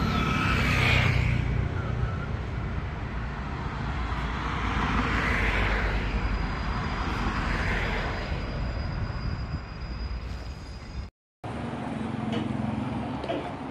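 Road traffic: vehicles passing one after another over a low rumble that fades during the first few seconds. The sound cuts out for a moment near the end.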